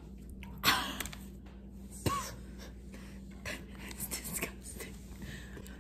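Scattered small clicks and rustles of things being handled close to the microphone, with one short hissing burst about a second in and a sharper click about two seconds in.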